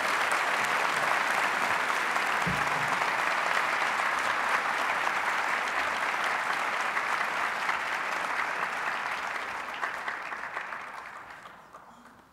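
Large auditorium audience applauding steadily, the applause dying away over the last couple of seconds.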